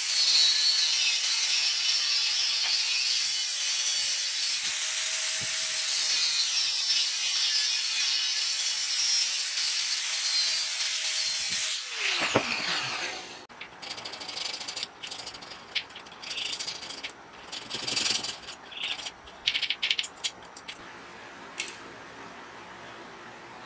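Angle grinder with a cut-off disc cutting a slot into a steel pipe: a loud, steady, high-pitched grinding that stops about twelve seconds in, its whine falling as the disc spins down. Then short, irregular scraping sounds.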